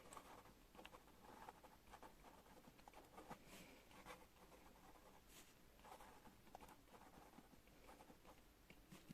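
Pen writing on paper, faint: a run of short, irregular scratching strokes with small ticks.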